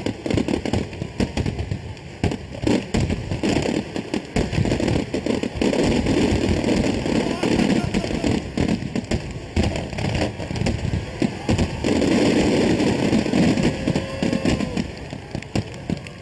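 Fireworks display: many aerial shells bursting in quick succession, a dense run of booms and crackling with no gap, loudest a little after the middle.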